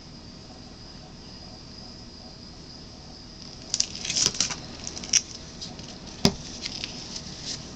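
Light clicks and crackles from a small metal hand tool being handled over a painting table, starting a little before halfway, then one sharp knock about three-quarters through as it is set down. A faint steady high-pitched whine runs underneath.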